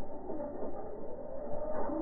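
Toy-grade RC monster truck with a 7200Kv brushless motor driving, its motor whine wavering in pitch and growing louder near the end.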